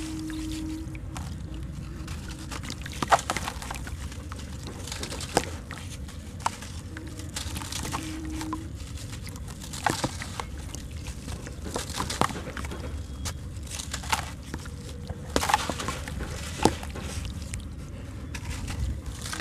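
Soft sand-cement being crumbled by hand into a tub of water: a steady crunching and crackling of grit, with sharp cracks now and then as chunks break apart and sand falls into the water.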